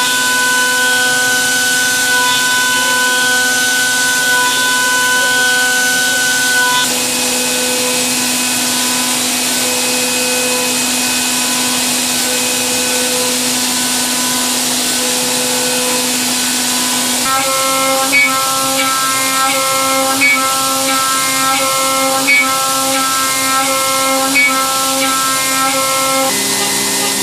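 Matsuura MAM72-42V five-axis machining centre milling a metal mold block: a steady spindle and cutting whine over the hiss of coolant spray. The whine steps to a new steady pitch about seven seconds in and again about seventeen seconds in. In the later part, light regular ticks come about every two seconds.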